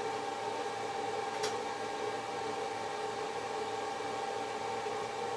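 A steady mechanical hum with a couple of held tones over an even hiss, and a single short click about one and a half seconds in.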